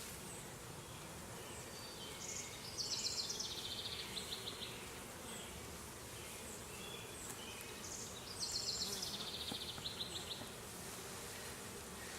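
Honeybees buzzing steadily around an opened hive. A songbird sings twice over it, a quick trill of high notes falling in pitch, about three seconds in and again about eight seconds in.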